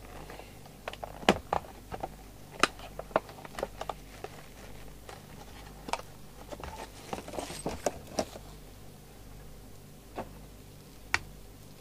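Plastic bag crinkling with irregular clicks and taps as a microphone is handled, over a steady low hum.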